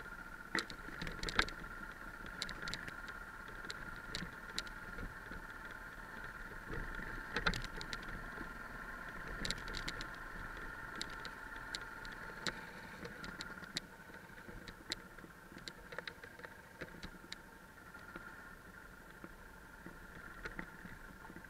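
A Yamaha 660 single-cylinder dual-sport motorcycle running along a rough dirt trail, its engine a steady muffled hum. Frequent sharp knocks and rattles come from the bike going over stones and bumps. The engine note drops a little past the middle.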